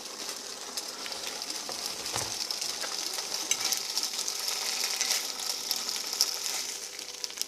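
Thin-sliced bologna sizzling in a dry pan, frying in its own fat with no oil or butter, a steady hiss with scattered small crackles.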